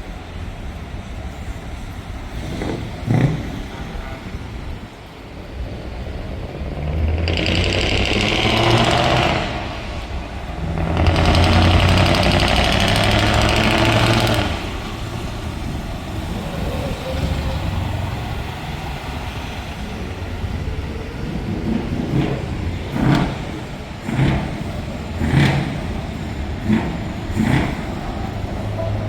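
Open-piped V8 truck engine running, held at high revs twice for a few seconds each, then blipped with about six short throttle stabs near the end.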